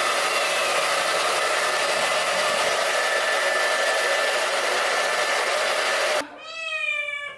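Hair dryer blowing steadily on a freshly bathed cat, switched off about six seconds in. Right after, the cat gives one long meow that falls slightly in pitch.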